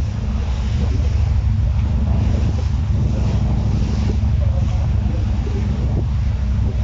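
A boat under way: a steady low engine drone, with wind noise on the microphone and the wash of water over it.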